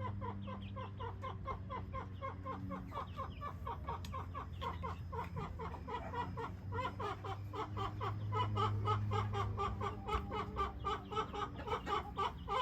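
Mother hen clucking to her chick at roost in a quick, even run of short calls, growing faster and louder after about six seconds. A low steady hum runs beneath.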